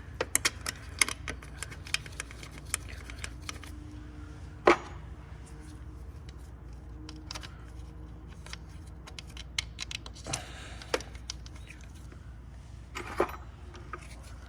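Hand tools, bolts and metal engine parts clicking and clinking as an engine's top end is put back together, with a sharper knock about five seconds in and a few more near the end.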